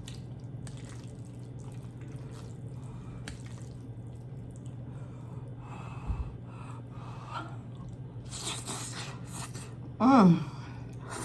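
Eating sounds from a mouthful of spicy instant ramen noodles: faint wet mouth clicks and chewing, then a noisy slurp about eight seconds in. Near the end comes a short falling vocal exclamation, over a steady low hum.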